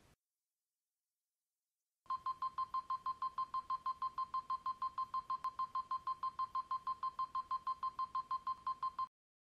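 Rapid series of short electronic beeps, all at one pitch, about six a second. They start about two seconds in after near silence and stop abruptly near the end.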